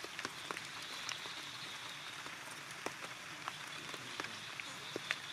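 Steady rain falling, with scattered sharp taps of drops hitting leaves and stone.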